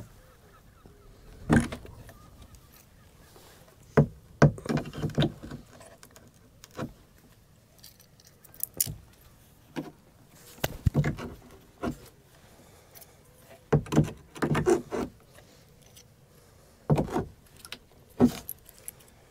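Hand tools striking and prying at a wooden boat's planks as rotten planking is broken out: sharp, irregular knocks, some single and some in quick clusters, with pauses between.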